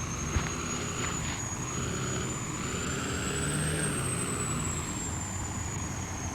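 Pickup truck driving at a steady pace, with engine and road noise and a thin high whine that climbs slightly toward the middle and then eases off. There is a small click shortly after the start.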